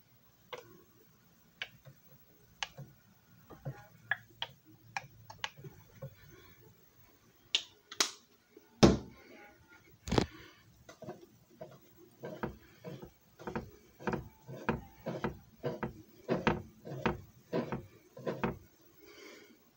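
Handling noise: short clicks and knocks of things being picked up and set down on a table, with two heavier thumps near the middle, then a run of even clicks about two a second.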